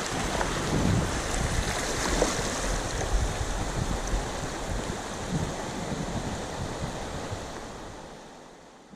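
Rushing whitewater of the North Umpqua River, with wind buffeting the microphone in low rumbles. It fades out over the last couple of seconds.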